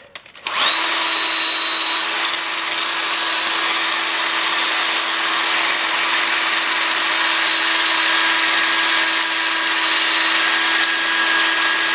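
Power drill running steadily with a spark plug chucked in it, spinning the plug to clean it. It starts about half a second in and runs evenly with a high whine.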